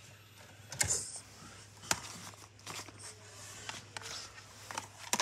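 Light clicks and knocks, roughly one a second, with a sharper double knock near the end, over faint hiss: handling noise as the disc player and camera are handled.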